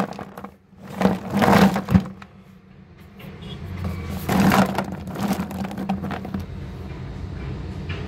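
Chunks of roasted clay clattering and sliding against one another and the sides of a plastic bucket as it is tipped and shaken, in three bursts, over a low steady hum.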